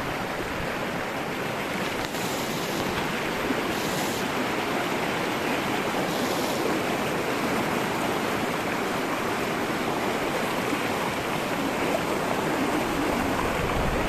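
Fast-flowing mountain river rushing over rocks: a steady, even rush of water close to the microphone.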